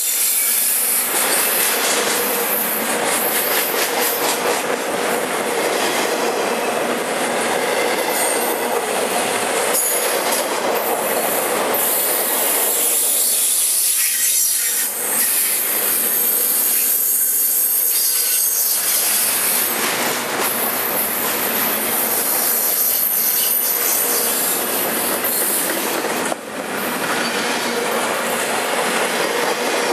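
Double-stack intermodal freight train's well cars rolling past close by: steel wheels on rail, loud and steady, with thin high-pitched squeal tones running through the rolling noise.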